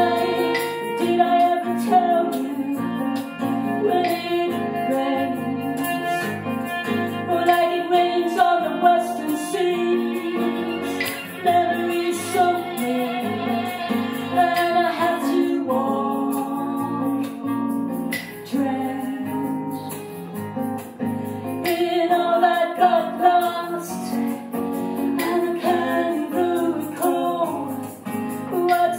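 Live band playing a song: women singing, accompanied by fiddle, acoustic guitar and electric bass guitar.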